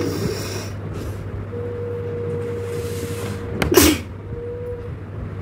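A person sneezes once, sharply, about four seconds in, after a drawn-in breath. The sneeze is set off by long grass tickled in the nose. A steady low hum sits underneath.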